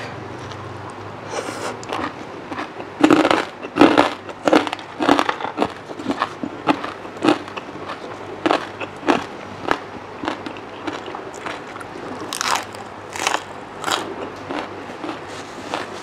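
Close-miked eating: crisp crunching bites and chewing of shredded papaya salad and raw green vegetables, with a crunch often about every half second. The loudest crunches come about three seconds in and again near the end.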